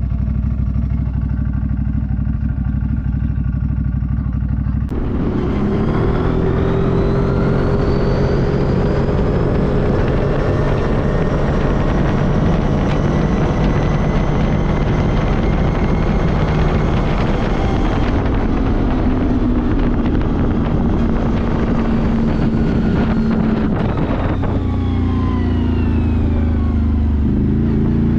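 ATV engine running under way: a steady low note at first, then about five seconds in it turns suddenly louder and pulls with slowly rising pitch. It eases off partway through, and near the end the pitch falls and picks up again as the throttle is let off and reopened.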